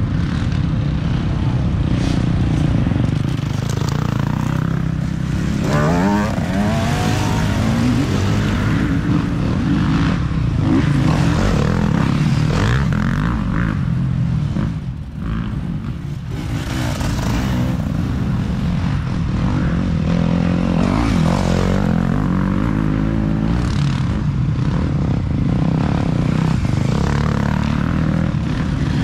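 Dirt bike engines running hard as riders come through the course, the engine note rising and falling with throttle and gear changes. There is a rising rev about six seconds in.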